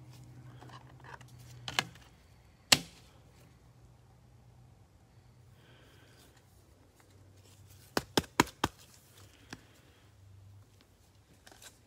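Quiet handling of a trading card and a clear rigid plastic card holder, with a few sharp clicks and taps: a single loud one a little under three seconds in and a quick run of four about eight seconds in.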